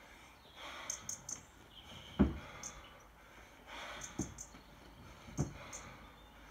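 A 24 kg kettlebell one-arm long cycle (clean and jerk) set at a steady pace. Three dull thumps from the reps, the first the strongest, come about every second or two. Hard, hissing breaths work in time with the lifts between them.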